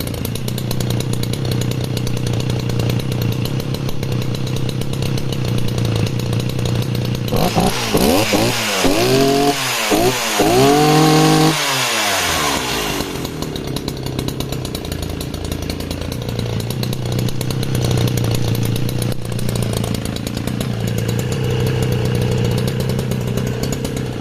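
Sachs Dolmar 119 61cc two-stroke chainsaw idling steadily. About seven seconds in it is revved up in several quick blips, the last held for about a second, then it drops back to a smooth idle.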